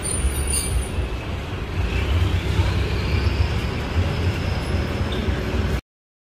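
Busy city street traffic: a steady rumble of passing vehicles, with a faint rising whine about two seconds in. It cuts off suddenly near the end.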